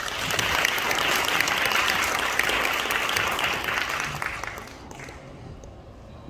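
Audience applauding, many hands clapping together, dying away after about four to five seconds.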